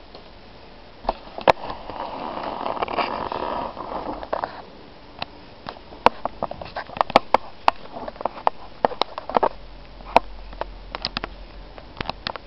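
A rustle lasting a couple of seconds, then a run of sharp, irregular clicks, at times several a second.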